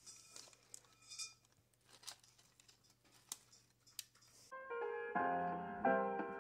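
Light scraping and scattered clicks of metal tongs working soft roasted winter squash flesh on a baking tray. About four and a half seconds in, instrumental background music starts and is louder than everything before it.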